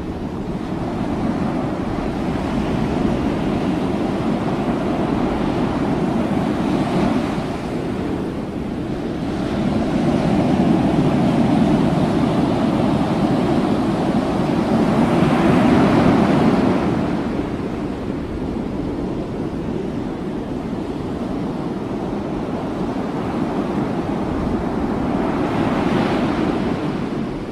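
Steady rushing noise of wind and sea, with wind buffeting the microphone and no distinct impacts; it swells louder twice in the middle.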